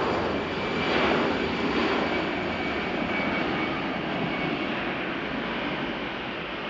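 Jet airliner's turbofan engines passing close: a rushing noise with a steady high whine, loudest about a second in and then slowly fading.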